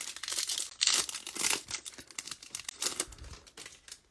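Foil wrapper of a Bowman Chrome trading-card pack being torn open and crinkled: a dense run of crackling rustles that dies away near the end.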